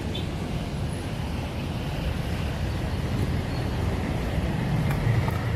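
Steady road traffic noise: a low rumble of passing vehicles.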